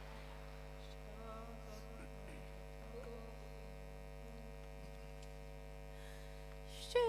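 Steady electrical mains hum from the sound system, with a few faint, indistinct sounds. Music begins suddenly at the very end.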